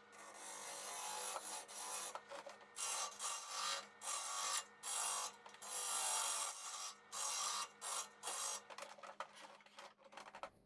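Abrasive rubbing against the outside of a spinning alder bowl on a wood lathe while it is smoothed and finished, in irregular strokes of under a second each, over a faint steady hum from the lathe.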